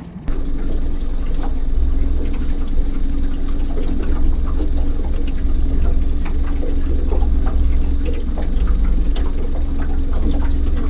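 Boat motor running steadily, with a strong low rumble, a steady hum and water splashing against the hull. It starts abruptly a moment in.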